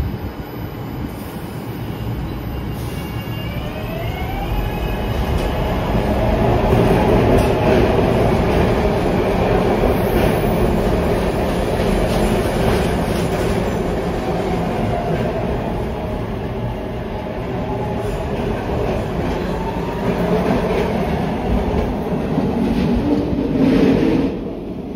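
SEPTA Market-Frankford Line train running through the station, a dense rumble of wheels on rail that swells loud through the middle. A few seconds in, a rising motor whine is heard as the train picks up speed; the sound falls away near the end.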